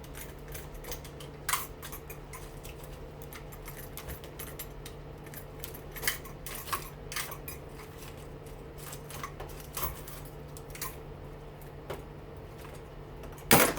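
Scattered small metallic clicks and clinks of hand tools and loose parts being handled while a washing machine motor is taken apart, over a steady low hum. A louder click comes near the end.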